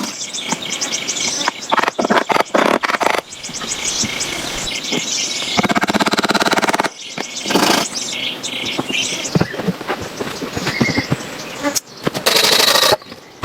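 Rainforest insects and birds calling, broken by many short knocks and clicks.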